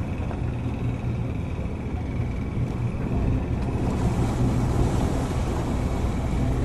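Boat engine running steadily with a low hum, heard on board over wind and water, a little louder and hissier from about four seconds in.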